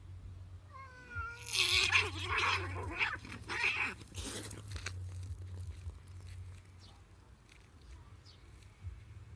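Two cats fighting: a wavering, rising yowl about a second in breaks into a loud, harsh outburst of screeching lasting about three seconds, then dies down to quieter sounds.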